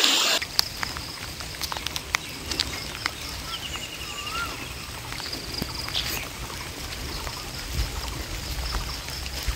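Outdoor ambience beside a swollen, flooded river: a steady low rumble with scattered faint clicks, and a short chirping call about four seconds in.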